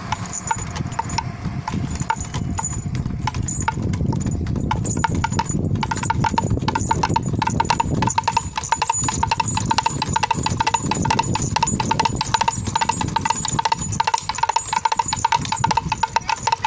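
Wind-driven whirligig whose bird figure pecks a small gong: a rapid run of knocking strikes, each with a short ringing tone. The strikes come faster and more evenly about six seconds in.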